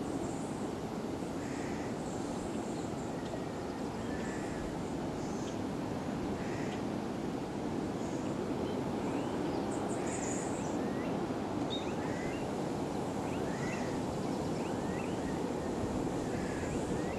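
Steady outdoor rushing ambience of wind and distant sea, with small birds calling in short rising chirps, a run of them in the second half.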